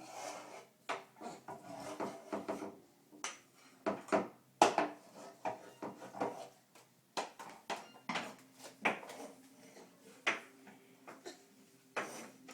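Irregular knocks, clatters and scraping of hard objects, wooden and dish-like, as a baby pulls things about and knocks them over; the sharpest knock comes about four and a half seconds in.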